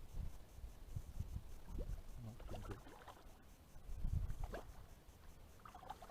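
Faint water splashing and sloshing from a hooked fish fighting at the surface, with irregular low rumbling.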